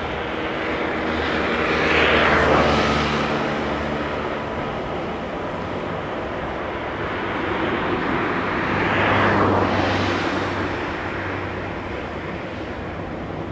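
Two vehicles passing close by, about seven seconds apart, each swelling and fading over a few seconds, over a steady background hum.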